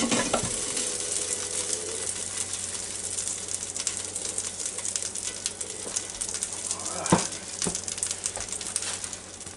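Hot chicken fat sizzling and crackling in the open Ninja Foodi Grill's crisper basket just after the wings are lifted out. There is a clack of tongs on the basket at the start and a knock about seven seconds in.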